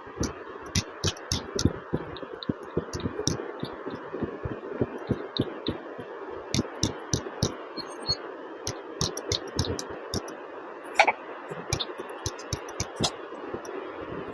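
Quick, irregular thumps, several a second, with sharp clicks above some of them: hands patting and tapping on a patient's body during a massage treatment.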